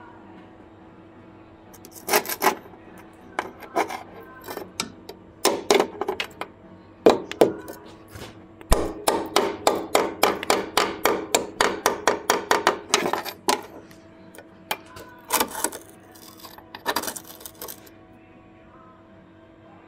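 Sharp metallic taps and knocks from under a Mercedes, around the anti-roll bar and its clamp on the floor pan. They come singly at first. About nine seconds in they become a quick, even run of about four knocks a second for some five seconds, then a few scattered knocks follow. A steady low hum sits underneath.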